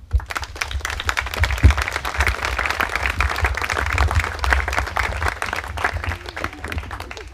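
A crowd of guests applauding: many hands clapping together. It starts at once, swells, and thins out near the end.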